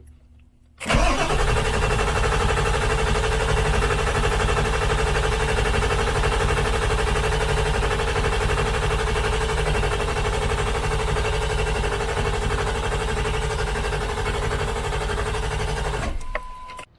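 2001 Ford F-350's 7.3 L Power Stroke V8 diesel turning over steadily for about fifteen seconds, then cutting off abruptly. A brief beep follows right after.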